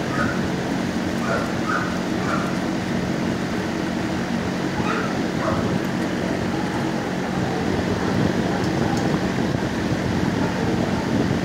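Dogs in neighbouring shelter kennels barking and yipping, short high yelps in the first couple of seconds and again about five seconds in, over a steady loud rushing noise.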